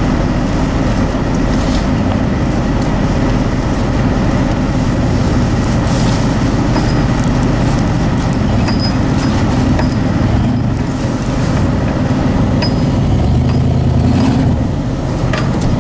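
Pickup truck running with steady engine and vehicle noise. This is an old 1989 Ford F-150.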